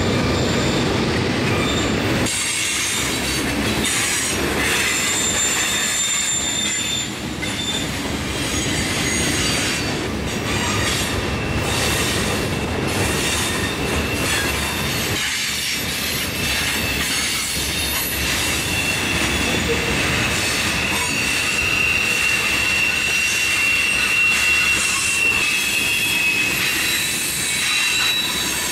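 Loaded Herzog ballast hopper cars of a rock train rolling past, with a steady rumble and clatter of wheels on rail and high wheel squeal that comes and goes, longest and strongest in the second half.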